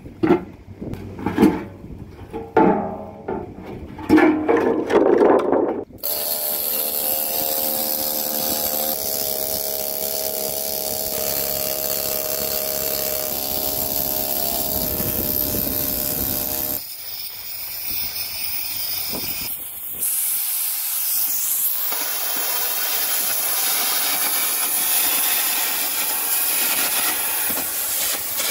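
Loose steel offcuts knocking and clattering in the bucket for about six seconds. Then a pneumatic chipping tool chatters with a steady buzzing hiss along a weld seam on the excavator bucket. After a short quieter gap, MIG welding gives a steady hiss.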